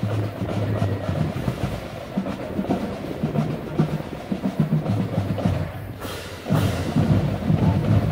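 Marching band drumline playing a street cadence. The drum pattern drops off briefly about six seconds in, then comes back louder.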